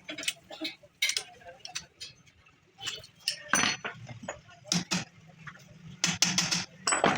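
Irregular metallic clinks and taps, with several sharper knocks about halfway through and near the end, from steel tools and parts being handled during a differential repair.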